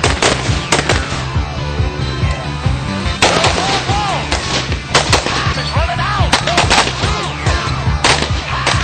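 Gunshots from AR-15/M16-type rifles, about a dozen sharp reports fired singly and in quick pairs, over background music with a steady beat.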